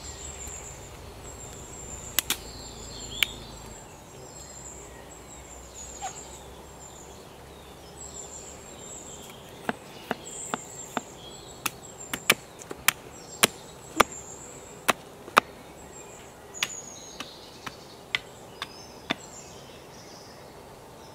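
A knife blade chopping into a wooden stick: a few sharp cuts early on, then from about ten seconds in a run of about twenty sharp chops, roughly two a second, that stop a couple of seconds before the end. Small birds chirp throughout.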